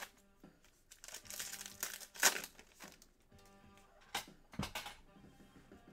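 Trading card pack wrapper crinkling and being torn open, loudest about two seconds in, then a few short rustles as the cards are handled. Faint background music runs underneath.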